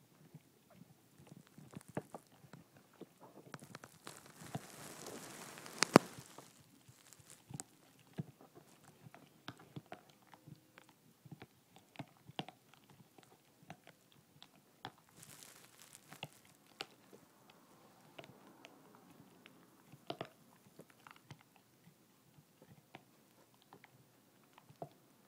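Basset hound gnawing a bone, with irregular crunches and clicks of teeth on bone; the loudest is a sharp crack about six seconds in.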